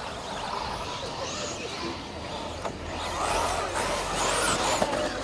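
Several 1/10 scale electric off-road RC buggies racing, their motors whining up and down in pitch as they accelerate and brake, over a steady hiss; louder from about halfway through.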